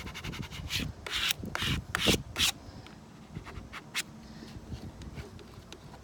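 Plastic card rubbed hard over a vinyl decal's transfer tape on a car window glass, a quick series of scraping strokes in the first half, then lighter, fainter strokes. The card is pressing the decal's fine pieces down onto the glass.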